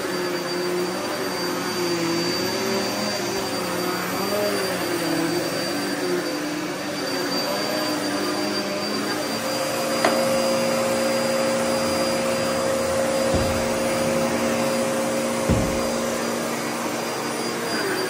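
Upright vacuum cleaner running over carpet, its motor hum wavering in pitch as it is pushed about, then holding a steady pitch from about halfway. A sharp click comes about halfway through, and two low thumps follow near the end.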